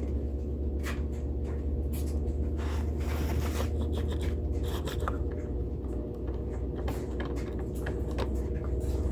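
Steady low electrical hum, with scattered small clicks and scraping as an HO-scale model locomotive is handled on the track.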